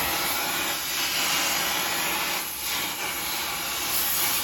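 Gas torch flame hissing steadily while it heats square steel bar stock to cherry red before the bar is twisted.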